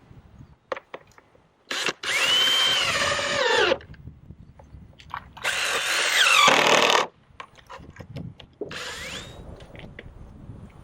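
Power drill driving screws into plywood in three runs, each a whine that rises and then drops in pitch as it slows. The first two runs last about two seconds each, and the last is short, near the end.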